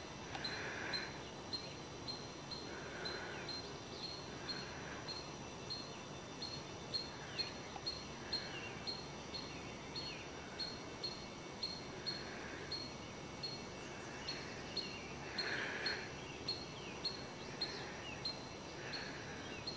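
Outdoor ambience over a steady hiss: a short, high chirp repeats evenly about twice a second, and softer calls come every couple of seconds.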